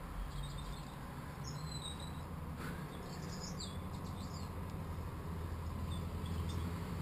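Muffled, steady low rumble of river water around a submerged camera, with a few faint, short high chirps and one click about two and a half seconds in.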